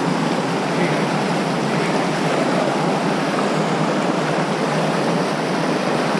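Steady, loud rush of whitewater rapids on the Madison River.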